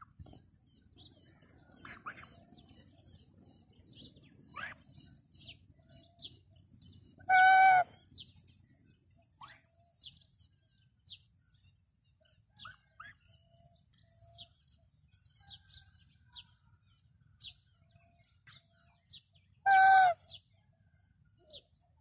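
Domestic geese: two loud honks, one about seven and a half seconds in and one near the end, over frequent short, high chirps throughout.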